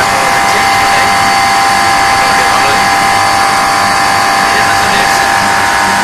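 Split air conditioner's outdoor unit running, its compressor and condenser fan making a loud, steady whir with several steady whining tones. The system has just been restarted after a refrigerant charge.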